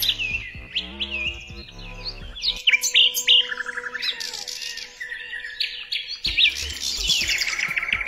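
Several songbirds chirping and singing, with quick swooping whistles and fast rattling trills, over soft background music with long held notes.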